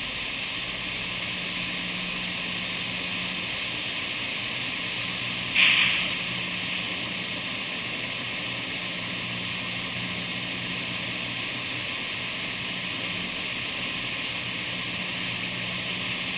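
Large diesel generator set running with a steady hum and hiss, then a single loud bang about five and a half seconds in as the machine is jolted by an attack on its control settings, the repeated out-of-phase reclosing that wrecked it in the Aurora Generator Test.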